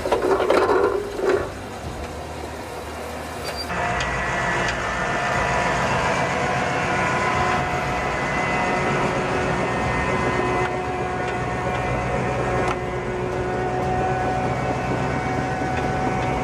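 Heavy vehicle engine running steadily with an even hum, after a couple of short loud bursts of noise in the first second or so.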